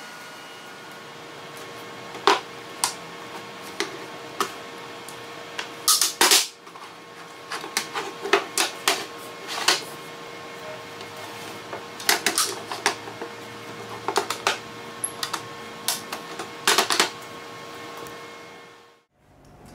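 Walnut folding camping shelf being folded flat and opened out again: irregular wooden clacks and knocks as the slatted shelves and scissor legs swing together and set down on the workbench, with the loudest clusters about a third of the way in and near the end.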